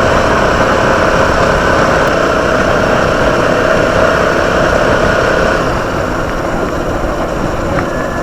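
Motorcycle running at a steady pace on the road, its engine under a constant rush of riding noise. It cuts off abruptly at the very end.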